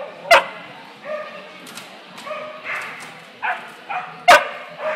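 Dogs barking, with two sharp, loud barks, one just after the start and one near the end, among shorter yips and people talking.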